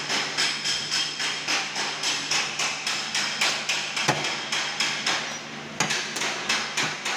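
Body hammer tapping on a car body panel, a fast even run of metal-on-metal strikes about three a second, each with a short metallic ring. A brief pause comes near the end, followed by a harder strike. A steady low hum runs underneath.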